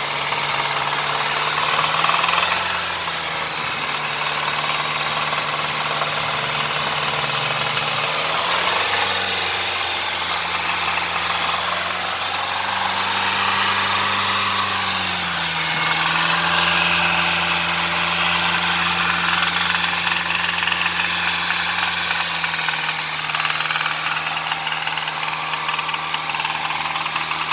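Hyundai Sonata's 2.4-litre four-cylinder engine running with a knock, revved gently up and down a few times: the pitch rises about two seconds in, runs higher through the middle, and drops back in two steps in the second half.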